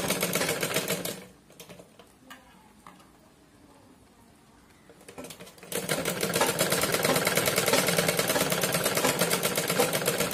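Mechanical domestic sewing machine stitching a seam in cloth with a fast, even clatter. It stops about a second in, with a few faint clicks during the pause, and starts stitching again just past the middle.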